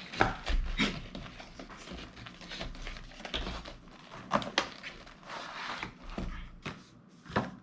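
Packing tape being picked at and pulled off a cardboard box, with irregular clicks, scrapes and rustling of the cardboard as it is worked open.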